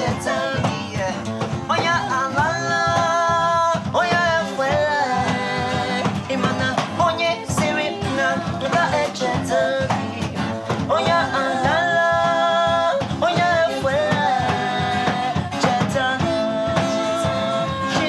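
A man singing with electric guitar accompaniment, holding several long notes between shorter phrases.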